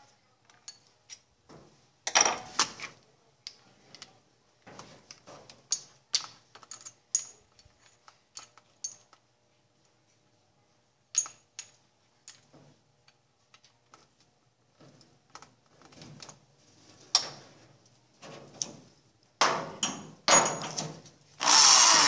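Electric drill with a socket bit undoing 13 mm bolts on a washing machine's base, running in short bursts with scattered clicks and knocks of the tool between. Longer, louder runs come near the end.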